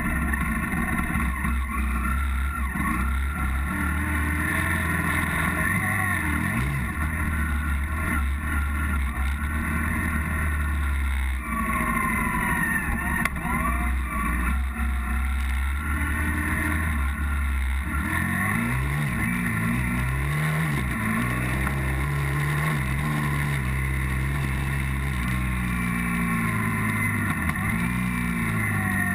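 Off-road motorcycle engine running under way on a gravel track, heard from a camera mounted on the bike. The engine pitch rises and falls with the throttle, changing repeatedly in the second half.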